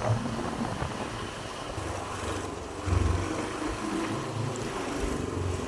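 A vehicle travelling on the road: a steady, low engine hum under road noise.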